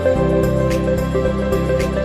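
Background music: a soft, new-age-style instrumental of held chords over a light, steady ticking beat, the chord changing just after the start.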